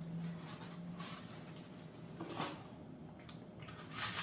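Faint rustling and handling noises from a new high-heeled shoe and its packaging being handled, with a few short soft scrapes about a second in, midway and near the end, over a faint low hum.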